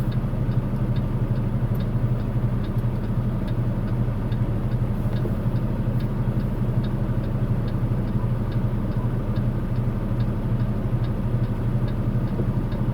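Semi truck engine running at a steady cruise, heard from inside the cab as an even low drone, with a faint regular ticking about twice a second.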